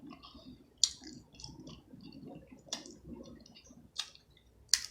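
Close-up crackle and sharp clicks of shrimp shell being cracked and peeled by hand, four distinct clicks over soft wet chewing sounds.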